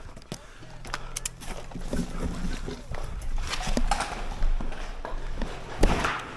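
Footsteps and the clatter of carried gear as an airsoft player moves, a run of short knocks and clicks over a steady low hum. There is a louder sharp noise near the end.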